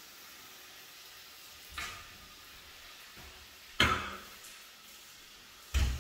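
A wet cleaning rag worked against the inside of a glass shower door while rinsing it: three sudden slaps about two seconds apart, the middle one the loudest, over a faint steady hiss.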